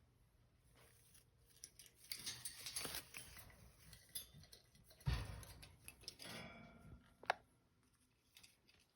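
Soft scratching and rustling of a pet bird being handled and stroked, with a knock about five seconds in and a short, sharp squeak from the bird about seven seconds in.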